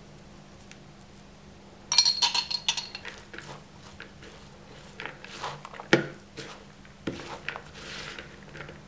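A metal utensil clinks sharply several times about two seconds in, then stirs and scrapes through grated carrot in a plastic bowl with soft clicks and rustling.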